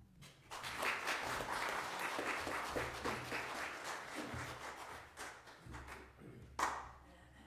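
Congregation applauding, many hands clapping at once, dying away after about five seconds, with one brief louder sound near the end.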